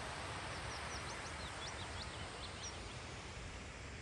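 Wind buffeting the microphone with a steady rushing noise, while a small bird sings a quick run of about ten high chirps from about half a second to three seconds in.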